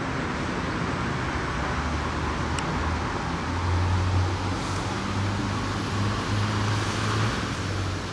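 Jet airliner engines heard from the ground as it climbs overhead: a steady broad rumble with a low drone, swelling a little around the middle.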